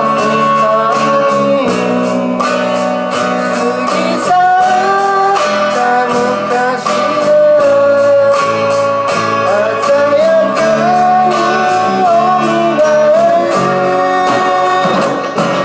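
Live band playing a Japanese folk-pop song through PA speakers: a sung melody over strummed acoustic guitars and electric bass, with a steady beat.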